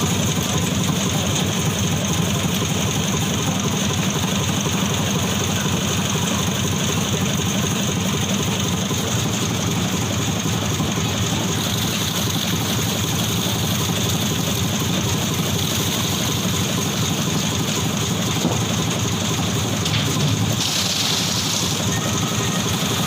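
An engine running steadily at a constant speed. About 20 seconds in, a brief higher hiss joins it for a second or two.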